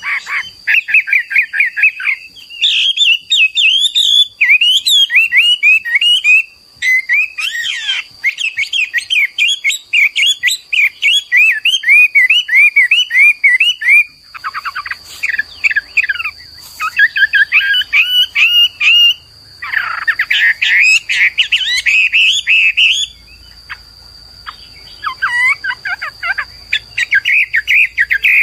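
Chinese hwamei (Garrulax canorus) singing: loud, rapid phrases of quick slurred whistled notes, each phrase repeating one note shape many times before switching to another, broken by short pauses.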